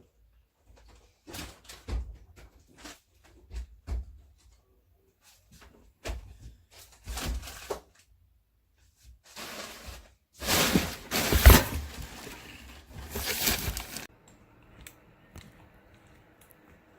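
Things being handled: scattered clicks and knocks, then about four seconds of loud rustling and scraping near the end, loudest a little past the middle.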